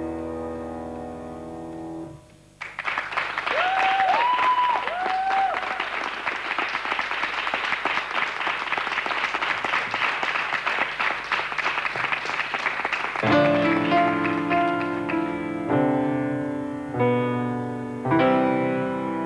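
A C. Bechstein grand piano's closing chord rings on and stops about two seconds in. The audience then applauds, with a few whistles early in the applause. About thirteen seconds in the piano starts playing again, a series of chords.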